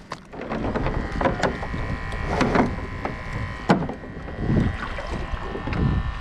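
Irregular knocks and clatter of gear being handled on a boat, over a low wash of wind and water noise. A faint steady high whine sets in about a second in.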